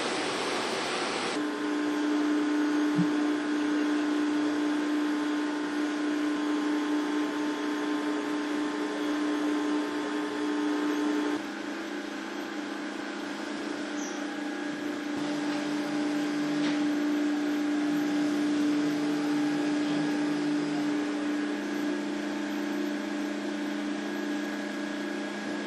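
A steady machine hum made of several constant tones, dropping slightly in level about eleven seconds in; for the first second or so a rushing noise like wind is heard instead.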